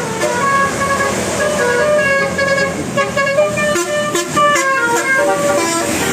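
A bus's telolet basuri multi-tone musical horn playing a quick tune of short notes that step up and down in pitch, several notes a second.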